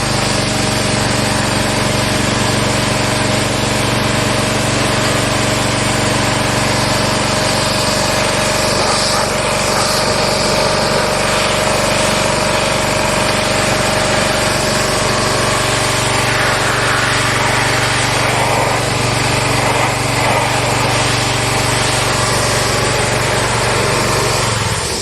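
Small gasoline engine of a pressure washer running steadily under load, with the hiss of the water spray over it. It cuts off suddenly at the very end and stalls even though it has plenty of gas.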